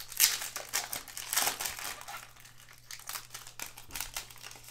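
Foil wrapper of a Panini Mosaic basketball card pack crinkling as it is torn open and pulled off the cards, loudest in the first two seconds, then lighter crackles.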